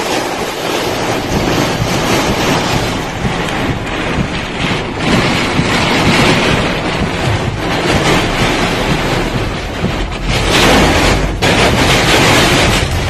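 Hurricane Ophelia's storm wind buffeting the microphone: a loud, continuous rush with a heavy low rumble, rising and falling in gusts, the strongest gust about ten seconds in.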